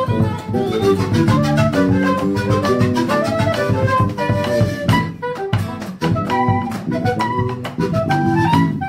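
Andean folk band playing live: a melody line over a steady drum beat.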